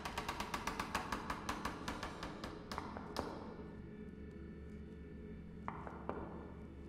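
Rapid run of sharp taps, about seven a second, slowing and fading away over the first three seconds, over a steady low musical drone; two more single taps come near the end.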